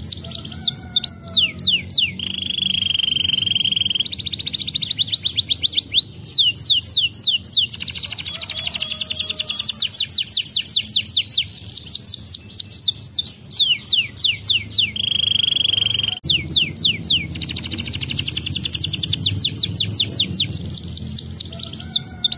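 Domestic canary singing continuously: fast trills of repeated sweeping notes, broken by short steady rolls on one pitch, one phrase running straight into the next.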